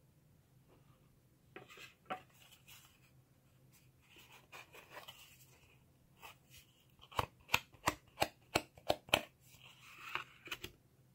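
Hands handling and sliding sheets of mat board and corrugated cardboard on a table: rustling and scraping, with a quick run of about eight sharp taps or clicks, roughly four a second, a little past the middle.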